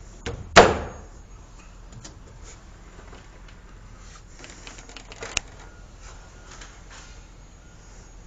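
Plastic drain pipe and fittings being handled: one sharp, loud knock with a brief ring about half a second in, then scattered light taps and clicks, with another sharp click a little after five seconds.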